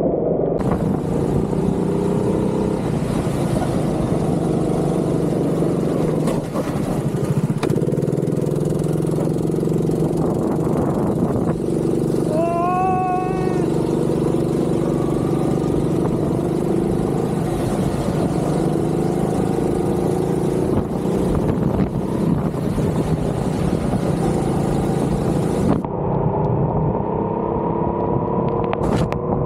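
Go-kart engine running and changing pitch as the kart drives laps on a wet track. A steady hiss drops out near the end, and a brief wavering squeal comes about halfway through.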